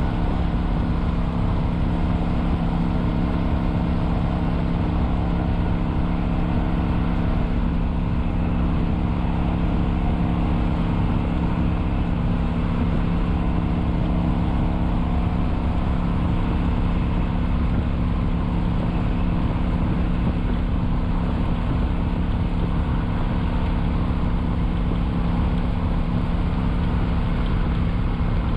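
Kawasaki Vulcan 900's V-twin engine running at a steady cruise on the highway, holding one even pitch, over a low wind rumble on the microphone.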